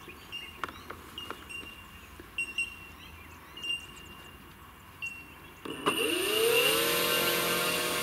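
Brushless electric motor of a large RC P-47 model, a 50-60 size 360 kV outrunner, spins up its four-blade propeller about six seconds in. Its whine rises in pitch and then holds steady as the model is throttled up for a takeoff run. Before that there are only a few faint short chirps and clicks.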